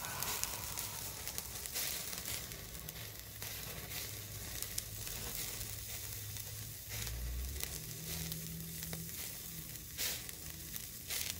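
Hamburger patty sizzling on a stainless steel grate over the burning charcoal in a charcoal chimney, with frequent small pops and crackles.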